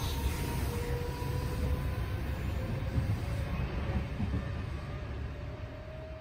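Steady rumble of an electric commuter train in motion, heard from inside the carriage, with a faint whine that rises slowly in pitch. The sound fades out near the end.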